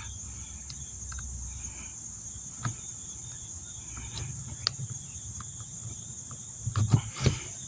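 Small clicks and taps from handling the small screws and plastic parts of a car door lock actuator, with a few louder knocks near the end. A steady high-pitched insect trill runs underneath.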